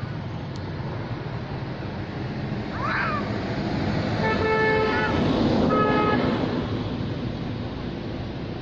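A vehicle horn sounds twice, a longer toot about four seconds in and a shorter one about six seconds in, over a steady rumble of traffic that swells briefly around the second toot. A brief high chirp sweeps up and down about three seconds in.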